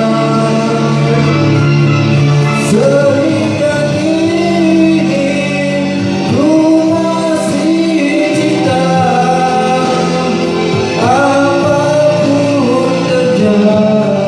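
Karaoke: a voice singing a slow melody with held, gliding notes over a backing music track.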